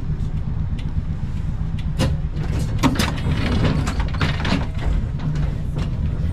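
Century-old ATM Class 1500 tram running: a steady low rumble with scattered clicks and knocks, the sharpest about two and three seconds in.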